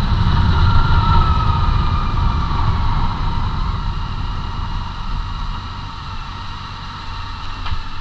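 BMW K1600GTL motorcycle's inline-six engine running at low road speed, with a deep rumble and a steady whine, gradually getting quieter as the bike slows.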